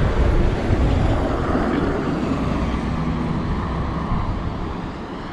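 Steady rushing vehicle noise, a motor running under a broad rumble.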